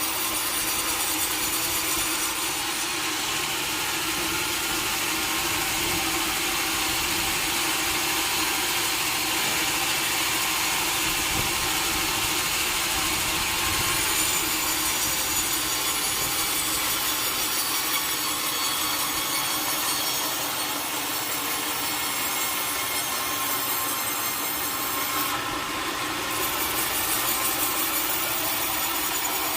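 Sawmill saw cutting lengthwise through a large log: a steady, unbroken sawing noise that holds an even level.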